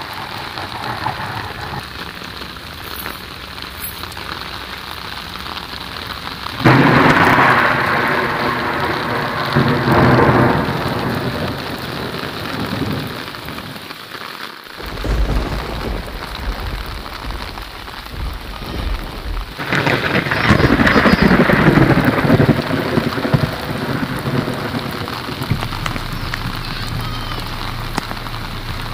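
Heavy rain pelting the surface of floodwater standing in a waterlogged field, a steady hiss of drops splashing on water that swells louder twice. A low rumble comes in partway through.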